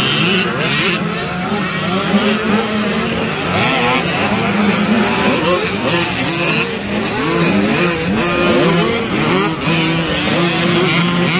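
A pack of small youth motocross bikes, two-stroke 85cc-class dirt bikes, racing past, with several engines revving up and down through the gears at once and overlapping, over a steady engine drone.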